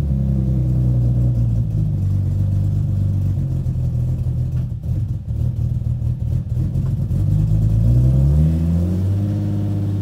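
Nissan 350Z's VQ35HR 3.5-litre V6 running at a fast idle just after starting. It goes choppy and uneven in the middle, and the revs rise near the end. The engine has a misfire and rough idle.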